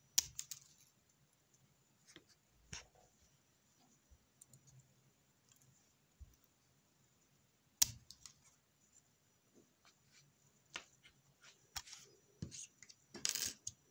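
Faint, scattered clicks and handling noise from folding metal trauma shears being worked by hand, with a sharp click at the start, a louder one about eight seconds in, and a short scrape near the end.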